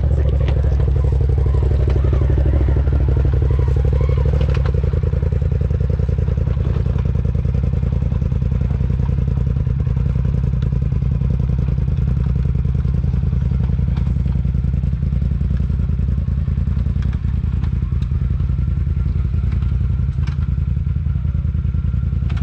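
Side-by-side UTV engine running steadily, with a few knocks and rattles from the vehicle as it goes over rough ground.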